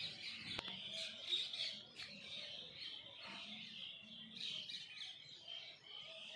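Small birds chirping continuously, a busy overlapping chatter of short high calls. Two faint clicks come about half a second and two seconds in.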